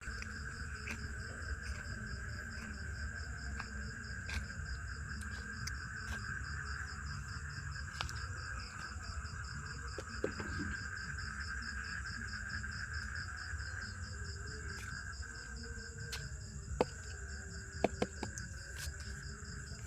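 Outdoor insect chorus of crickets or similar insects, several steady high trills at once, one of them finely pulsing. Under it runs a constant low rumble, and a few sharp clicks stand out near the end.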